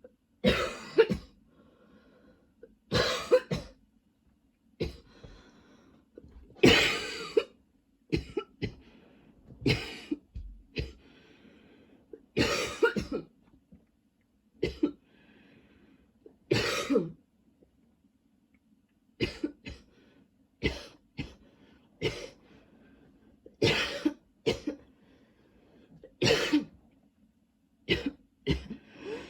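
A woman coughing in repeated fits, single coughs and quick runs of two or three, every second or two. The coughing comes from a lingering tickle in her throat.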